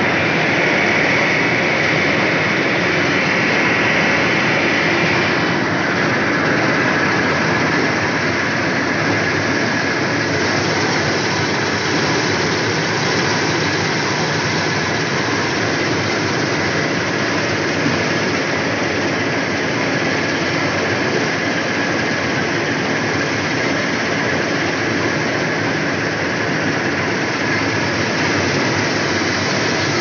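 Preet combine harvester running under load while cutting wheat: a steady, loud mix of engine and the header's and threshing machinery's noise, heard from the open operator's seat. A high whine sits on top for the first few seconds and fades about five seconds in.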